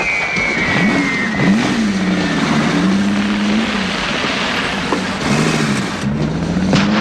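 Car engine revving as it accelerates away, its note climbing and dropping several times as it changes speed.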